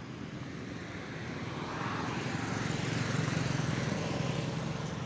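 Motor vehicle engine droning steadily while travelling along a road, with wind and road noise. It grows louder about two seconds in.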